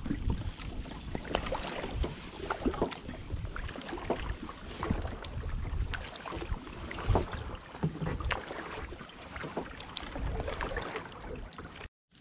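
Double-bladed kayak paddle stroking through calm water: the blades dip, splash and drip, with scattered small knocks, and a brief break near the end.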